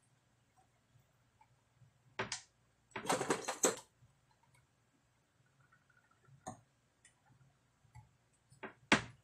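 Sharp plastic-and-metal clicks and rattles as a stiff-latched wire connector on an amplifier circuit board is worked at by hand and with a tool. A pair of clicks comes about two seconds in, a burst of rattling clicks about a second later, and a loud click near the end.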